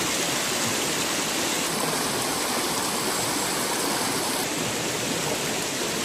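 A woodland stream rushing over a small step of stones: a steady, even rush of flowing water.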